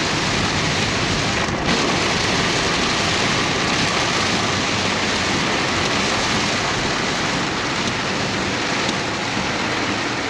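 Heavy rain pouring down, a loud, steady, even rush of falling water.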